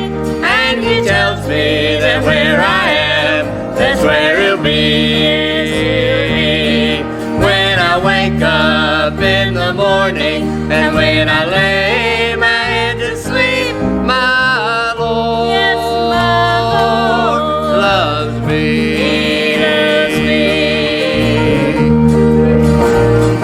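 Gospel song: singing with vibrato over instrumental accompaniment and a steady bass line.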